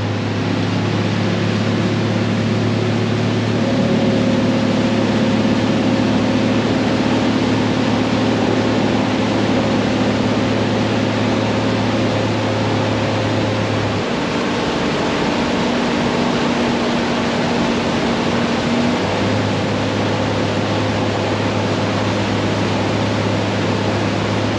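Boat's single outboard motor running steadily at cruising speed, a low even drone over the rush of wind and water from the planing hull and wake. About halfway through the engine drone drops away for some five seconds, leaving the wind and water rush, then returns.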